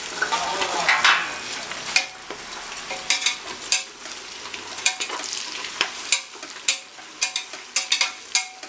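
Sliced onions sizzling in hot oil in an aluminium pressure cooker, stirred with a metal spatula that clicks and scrapes against the pot many times. The onions are at the start of frying.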